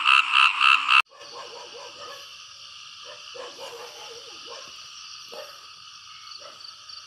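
Frogs in a rice paddy at night, calling in a loud, fast-pulsing chorus that cuts off abruptly about a second in. After it comes a fainter, steady, high-pitched night chorus with scattered soft scratchy sounds.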